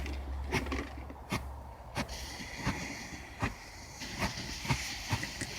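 A dying log fire crackling with sharp, irregular pops, and from about two seconds in a steady hiss as the fireworks heating in the fire pit start to fizz.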